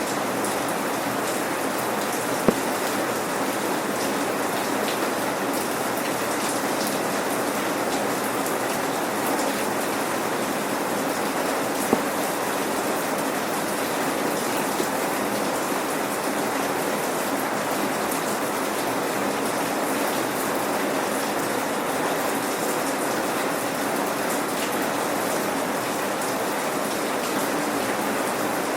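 Steady rain without thunder, raindrops pattering on hard surfaces, with a few louder single drop hits standing out now and then.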